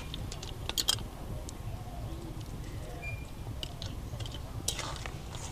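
Spatula stirring snails and soaked flattened rice in a metal pan: scattered light clicks and scrapes, with a louder clack about a second in, over a low steady rumble.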